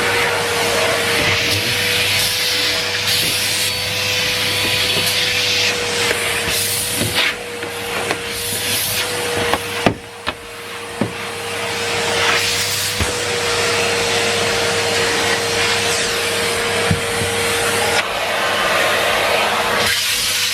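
Numatic Henry Pet canister vacuum cleaner running: a steady motor whine over a rush of suction air that swells and dips as the floor tool moves. A few sharp knocks come around the middle.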